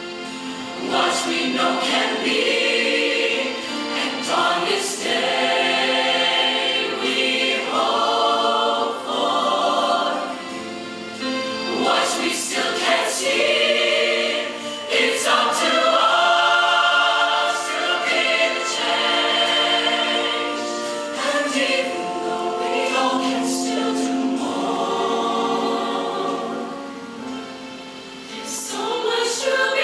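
Show choir singing a song together, many voices sustaining sung words through the whole stretch.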